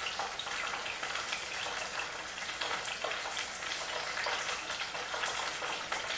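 Food frying in hot oil in a pan: a steady sizzle with a scatter of small crackles and pops.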